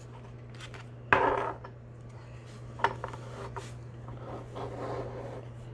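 Hard plastic card holders (top loaders) being handled and clattering against each other, with a sharp knock about a second in and a lighter click a couple of seconds later.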